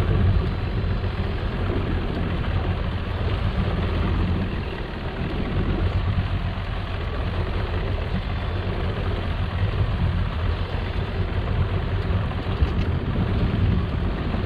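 Boat engine running steadily, a constant low rumble with a hiss of wind and water over it.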